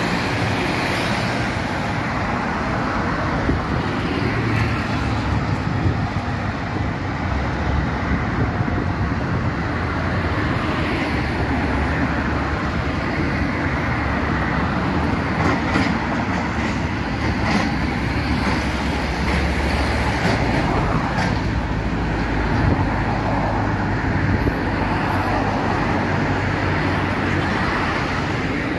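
Steady road traffic noise: car engines and tyres on a multi-lane road, heard from a moving vehicle, with a constant low rumble.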